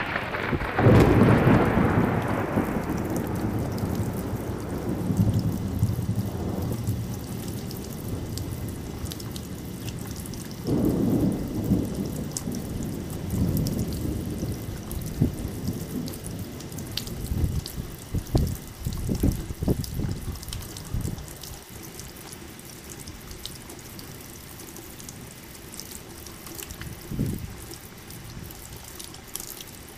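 Steady rain with thunder: a loud thunderclap right at the start that rolls and rumbles away over several seconds, then further rolls of thunder about ten seconds in, around twenty seconds and near the end. Raindrops tick and patter throughout.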